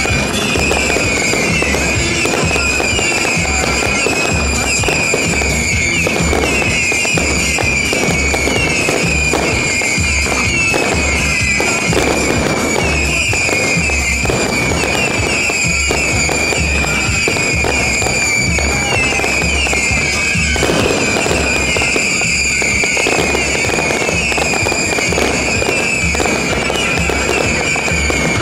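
Fireworks display: repeated bangs and crackling of aerial shells and fountains, mixed with loud music that has a steady low beat and a sustained, wavering high melody.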